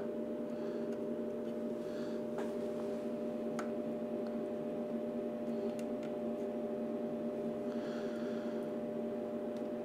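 Steady electrical hum made of a few held tones, the background of the electronics bench, with a few faint ticks.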